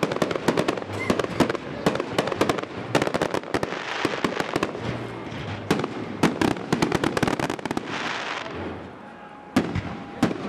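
Aerial fireworks display: a dense, rapid barrage of cracks and bangs from bursting shells, with hissing crackle between them. It thins out near the end, leaving a few separate loud bangs.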